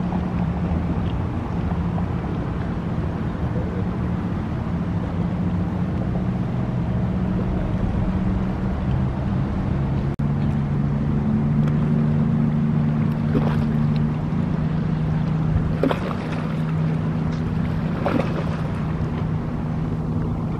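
Motorboat engines running with a steady low hum; the engine note shifts to a different pitch about halfway through.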